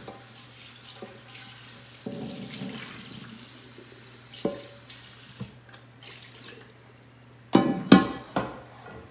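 Kitchen faucet running water into a large cooking pot as a hand scrubs it out. The water stops about halfway through, then the pot knocks against the stainless steel sink, with a loud cluster of three ringing clanks near the end.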